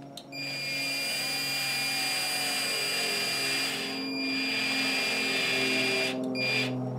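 Cordless drill running steadily with a high motor whine as it drives a small screw into the rock-rail mount of an RC crawler chassis. It eases off briefly past the halfway point, stops near the end, then gives one more short burst.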